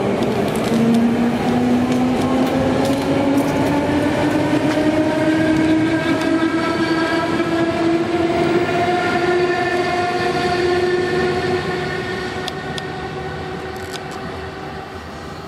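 Budapest HÉV electric suburban train pulling away, its traction drive whine rising slowly and steadily in pitch as it picks up speed, over the rumble of the wheels. The sound fades from about twelve seconds in as the train moves off.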